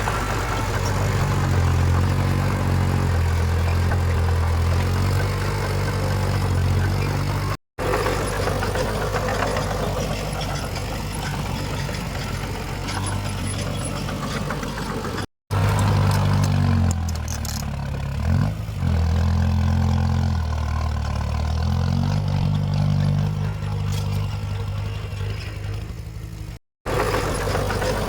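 Heavy diesel engines of earthmoving machines running under load, a deep drone that rises and falls in pitch. The sound drops out abruptly three times where the footage cuts between clips.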